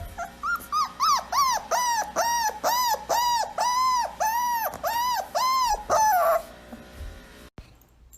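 Dog whining in a rapid run of about a dozen short, arching whines, each rising and then falling in pitch, about two a second. The whines stop about six seconds in.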